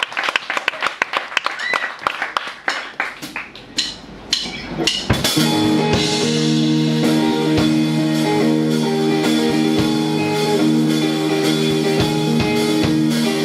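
Live funk-rock band with trombone, alto saxophone, electric guitar, bass guitar and drums. For about five seconds sharp drum and cymbal hits punch through; then the whole band lands on a long held chord, with drum hits over it.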